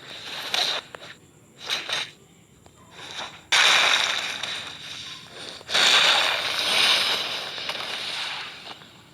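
Fingers rubbing against the microphone, making crackling, rustling noise: a few short bursts, then two louder ones that start suddenly about three and a half and six seconds in, each fading away over a couple of seconds.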